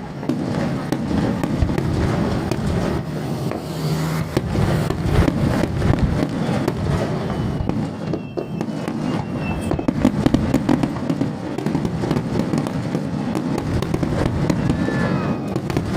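Fireworks display: a dense, continuous crackling and popping of bursting shells, with a few faint whistles.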